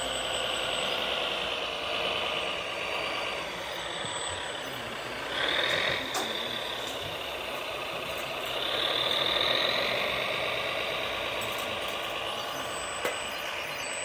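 Radio-controlled model trucks' electric motors and gearboxes whining, the pitch rising and falling as they speed up and slow down. A short click comes a little after six seconds, and another near thirteen seconds.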